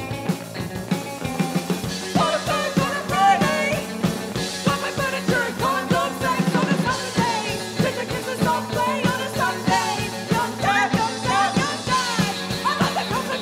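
Rock band playing live, with a steady drum beat under guitars and a voice singing over it.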